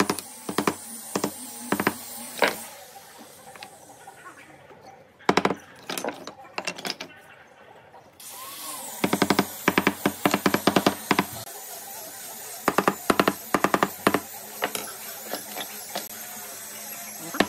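Wooden mallet tapping pine strips down onto a wooden board: sharp wooden knocks in short clusters, with a fast run of knocks about nine to eleven seconds in.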